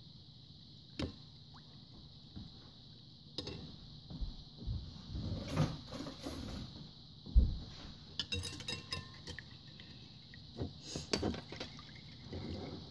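Metal spoon stirring a runny milk, egg and melted-butter mixture in a ceramic bowl: irregular clinks and scrapes against the bowl, sparse at first and busier after a few seconds, with one dull knock about halfway.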